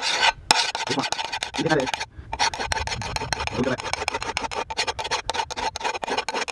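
Hand file rasping across the steel bevel of an old garden hoe in quick repeated strokes, with a short break about two seconds in. It is the sound of sharpening the edge to bright metal and raising a burr.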